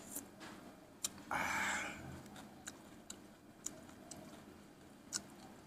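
A person chewing a mouthful of pounded papaya-style salad with rice noodles, with irregular small wet mouth clicks and lip smacks, and one louder breathy noise lasting about half a second, about a second and a half in.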